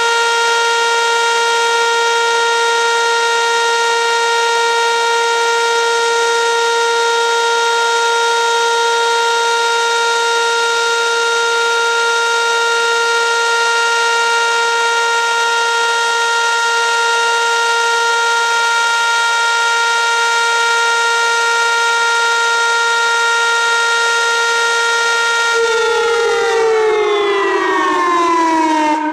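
A pair of Whelen WPS 2810 electronic outdoor warning sirens sounding a loud, steady alert tone during a monthly siren test. About 26 seconds in, the pitch slides down for a few seconds as the signal winds down, and it cuts off at the end.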